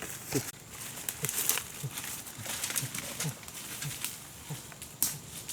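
An animal's short, low calls that fall in pitch, repeated about twice a second, over rustling and crackling clicks.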